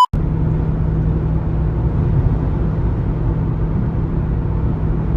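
Jeep SRT driving: a steady, even rumble of engine and road noise that holds constant throughout.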